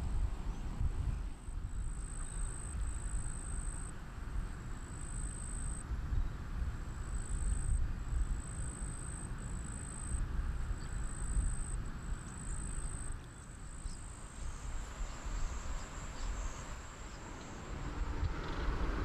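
An insect's high, thin buzz that starts and stops every second or so, over a low, uneven rumble of wind on the microphone.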